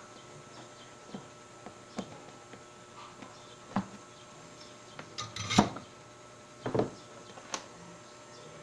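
Scattered light clicks and knocks from handling tools and a DVD player's circuit board on a workbench, about seven in all, the loudest a short cluster about five and a half seconds in.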